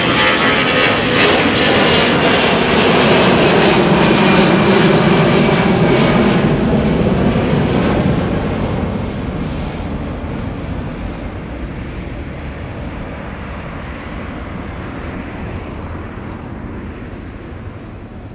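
Airbus A340-300's four CFM56 turbofan engines at takeoff power as the airliner climbs out overhead: loud jet engine noise with a high fan whine, loudest about four seconds in. From about eight seconds in it fades and turns duller as the aircraft climbs away.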